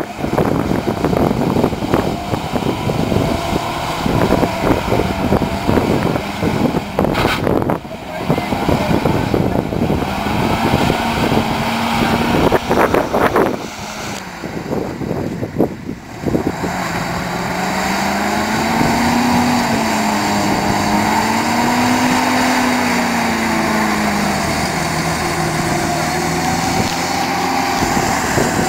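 A WWII jeep's four-cylinder engine running under way off-road, with buffeting and knocks through the first half. Past the halfway point the engine note steadies, rising and falling in slow swells as the throttle changes.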